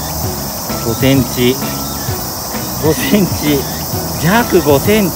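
Steady, high-pitched chorus of insects. Brief voice-like sounds sliding up and down in pitch come over it about a second in, around three seconds, and again near the end.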